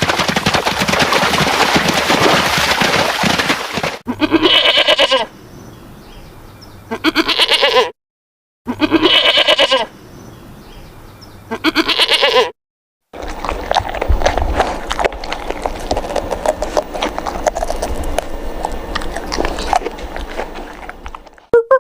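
Farm animals calling in a series of short cuts: several bleats about a second long, each cut off abruptly, between stretches of dense, noisy animal sound.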